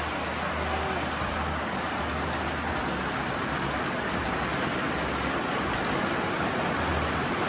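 Steady rain falling on corrugated metal roofing, an even hiss with no break.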